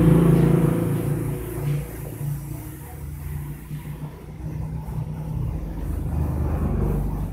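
Gravity-feed paint spray gun hissing as it sprays a coat of smoke tint, over the steady hum of an air compressor running. The sound is loudest at first, eases off midway and builds again near the end.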